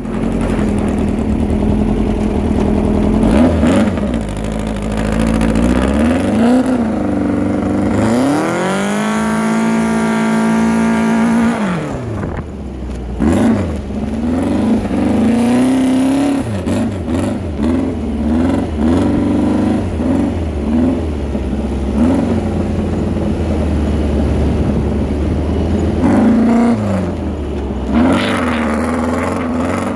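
Old-school dune buggy's engine driving over sand, revving up and down repeatedly. About eight seconds in it climbs to a high rev and holds there for several seconds before dropping back, then swells up and down in quick short revs.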